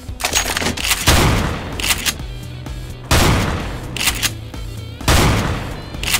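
Gunfire sound effects: loud shots about every two seconds, each trailing off, over background music.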